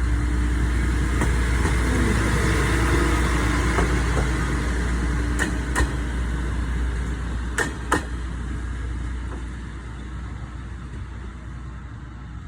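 Isumi Railway Kiha 20 diesel railcar running past with a steady low engine rumble. Its wheels clack over a rail joint in two quick pairs around the middle, then the sound fades as it moves away.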